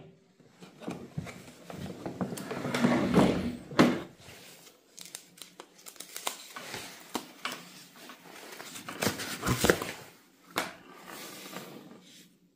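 Handling noises: irregular clicks, knocks and rustling, with a sharper knock about four seconds in.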